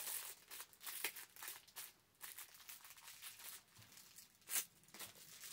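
Packaging crinkling and rustling in short, scattered crackles as small items are handled and unwrapped, the loudest crackle about four and a half seconds in.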